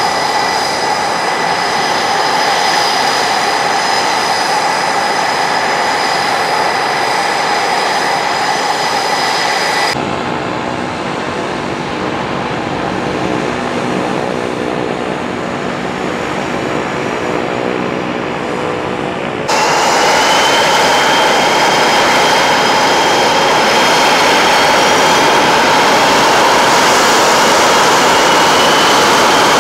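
Military jet engines running: a steady high whine over a loud rush of noise, in three cut-together stretches. After the second cut it is louder, and a whine climbs in pitch.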